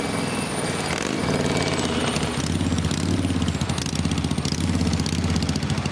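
Motorcycle engine running with a rapid, chugging pulse, its pitch rising and falling and growing louder about a second in.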